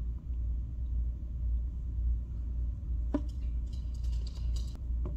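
Steady low rumble of background noise, with a brief faint sound about three seconds in and a few faint clicks near the end.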